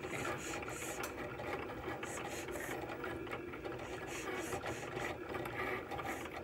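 Cricut cutting machine running as it cuts a printed design out of an iron-on transfer sheet. There is a steady motor hum, with short high whirs recurring in quick groups of two or three as the blade carriage and rollers move.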